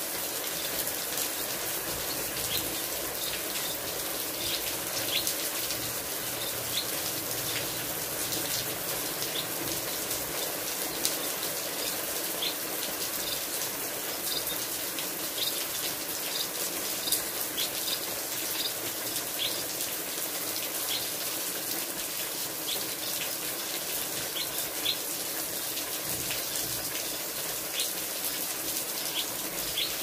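Steady hiss of rain falling into an aviary, with short high chirps from small birds scattered throughout.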